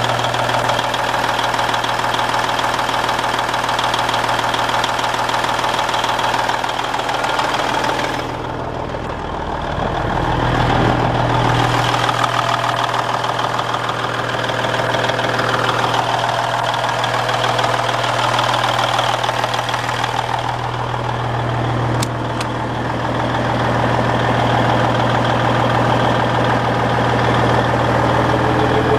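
Diesel engine of a 1999 Peterbilt 379 semi truck idling steadily, with a diesel clatter. It is briefly a little quieter about eight seconds in, and a single sharp click comes about 22 seconds in.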